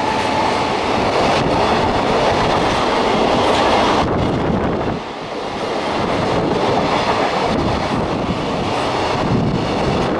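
Container wagons of a freight train rolling past at speed: a steady noise of steel wheels on rail with clicks as the wheels cross rail joints. The noise dips briefly about halfway through, as a run of empty flat wagons passes.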